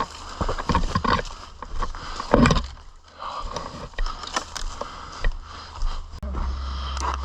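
Footsteps and the rustle and scrape of clothing and kit as an airsoft player moves on foot, with a louder scrape or crunch about two seconds in. A steady low rumble sets in near the end.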